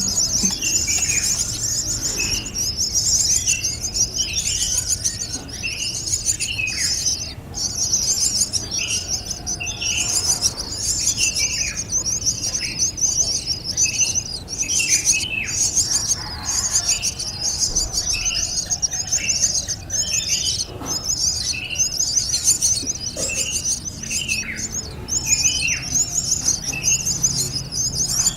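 Birds calling: a continuous, rapidly pulsing high-pitched chatter, with short downward-sliding chirps repeating every second or so.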